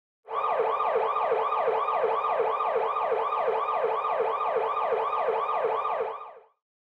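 Emergency vehicle siren wailing in a fast yelp, each rise and fall repeating about three times a second, which fades out near the end.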